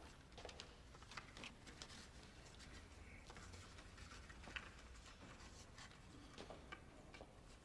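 Near silence: room tone of a hushed hall, with faint scattered small clicks and rustles.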